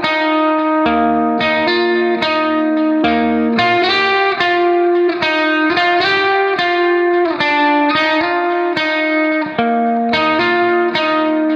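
Background music: a picked guitar melody, one plucked note after another at a steady pace.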